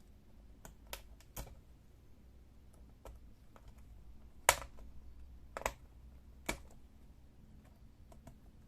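Scattered sharp plastic clicks as a small screwdriver pries the ASUS K50 laptop keyboard up and releases it from its retaining pins, with keys clacking as the keyboard is worked loose. There are about seven irregular clicks, the loudest about four and a half seconds in.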